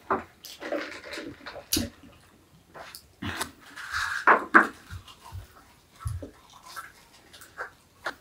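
Someone eating fast food at speed: irregular chewing, slurping and gulping noises with short clicks and rustles of the food packaging, the loudest a brief burst about four and a half seconds in.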